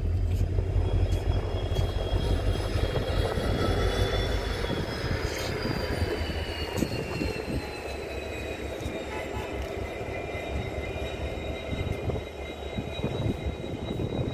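Electric locomotive running close by: a steady low rumble under several high whining tones that slowly fall in pitch, the rumble easing after about five seconds.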